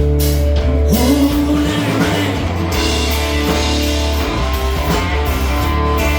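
Rock music, an instrumental passage: guitar over bass and drum kit, with a held, bending guitar note about a second in.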